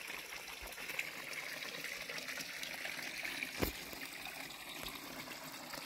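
Water trickling steadily from a garden pond's filter into the pond, with one brief knock a little past halfway.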